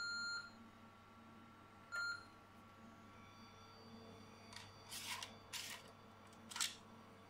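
Beep from the TI-99/4A computer ending just after the start, then a second short beep about two seconds in. Next come the plastic clatter and scraping of a 3.5-inch floppy disk being pushed into its drive, ending in a sharp click near the end as it seats.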